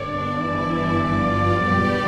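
Orchestral music holding sustained chords, with a new, deeper chord entering at the start and swelling slightly.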